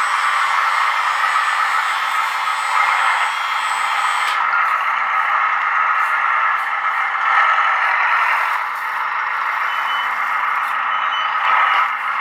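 Radio-controlled 1/14 scale hydraulic forklift's electric hydraulic pump and motors whirring steadily. The whir eases briefly about two-thirds of the way through and again near the end.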